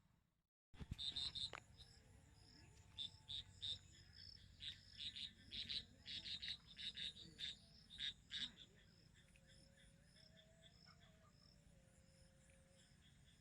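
Frogs calling in a series of short, quick bursts for several seconds, over a steady high insect trill. The calls start after a brief silence and stop a few seconds before the end, leaving the trill.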